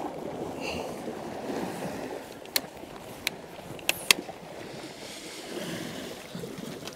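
Sea waves washing against the rocks with wind noise, and a few sharp clicks about halfway through.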